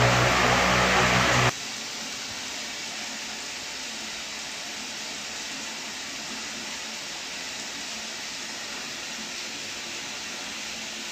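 Ventisol Thor 60 cm wall fan running, a loud rush of air over a steady low motor hum. About a second and a half in it cuts off abruptly to a much quieter steady hiss.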